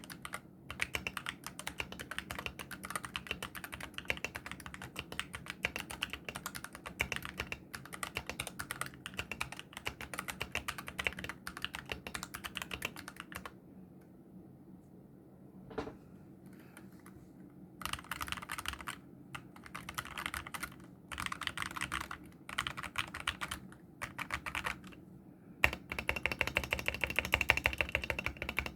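Mechanical keyboard with dry (unlubricated) Gateron optical brown switches, their tactile bumps removed so they act like linear switches, being typed on quickly. The typing stops for a few seconds near the middle, returns in short bursts, and ends in a dense run of rapid keystrokes.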